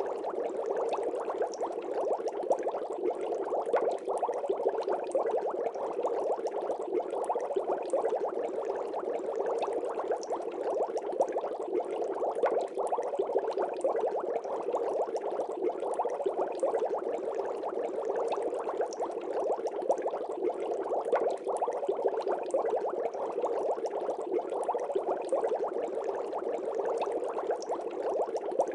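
Water bubbling steadily: a dense, unbroken stream of small bubble pops.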